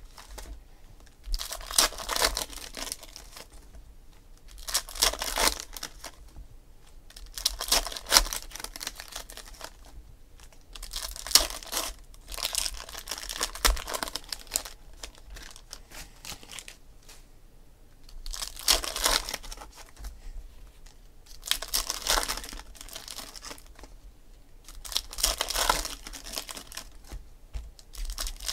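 Foil wrappers of Donruss Optic football card packs being torn open and crinkled by hand, in short crackly bursts every few seconds with quiet gaps between.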